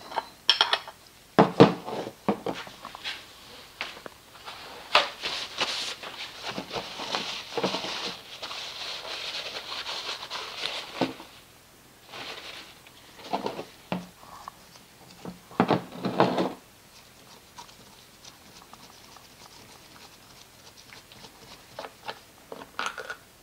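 Handling of a metal bypass oil filter housing as its cap is loosened with a spanner tool and the parts are set down: scattered clicks and knocks of metal on plastic. A longer stretch of rustling sits in the middle, and the handling turns quieter in the second half.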